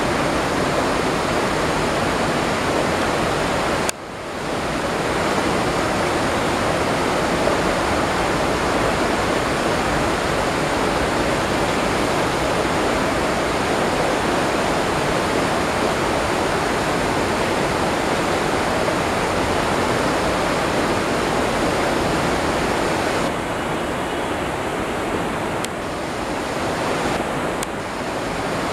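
Waterfall and river water rushing steadily, a loud, even rush with no let-up. It cuts out for an instant about four seconds in, and its hiss dulls briefly a few seconds before the end.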